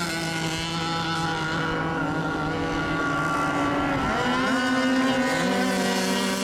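Several radio-controlled race boats' small two-stroke engines whining at steady pitch, one revving up about four seconds in.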